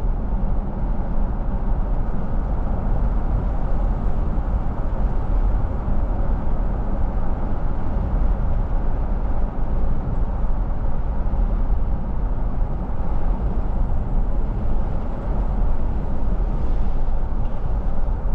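Car driving along: steady tyre and engine noise, mostly low rumble.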